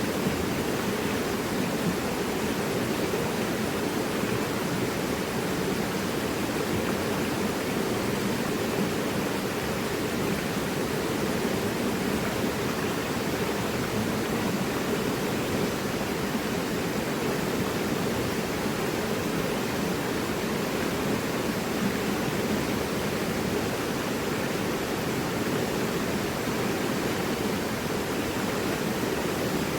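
Mountain river rushing over rocks: a steady, even roar of flowing water with no break.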